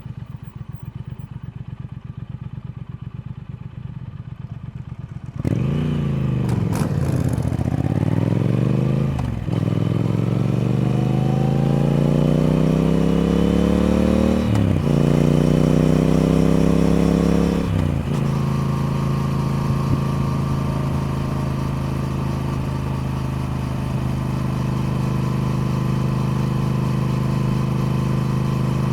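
Triumph Speed Twin's parallel-twin engine, beating quietly and evenly at first, then suddenly loud about five seconds in. It accelerates hard, its pitch climbing and dropping sharply at two upshifts, then settles to a steady cruise for the rest.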